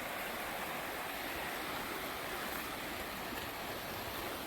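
Steady rush of the Quinapoxet River's flowing water, running high after heavy rain.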